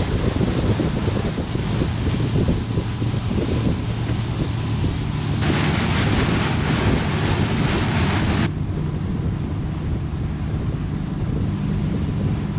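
A motorboat's engine running steadily at speed, with wind buffeting the microphone and the hull rushing through the water. From about five and a half seconds to eight and a half seconds, a louder hiss of wind or spray rises over it.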